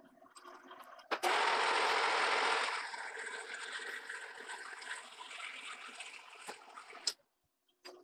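Monarch metal lathe running with its chuck and mandrel spinning: a loud, even rushing noise that starts suddenly about a second in, eases a little after a second or two, and cuts off abruptly about seven seconds in.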